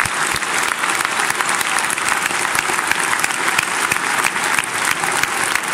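A large audience applauding continuously, a dense mass of clapping hands.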